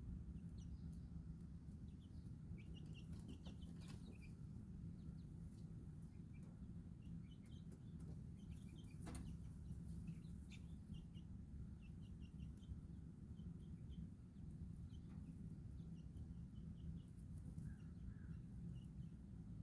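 Baby chicks peeping softly in short, high chirps scattered throughout, with a few sharp clicks, over a steady low hum.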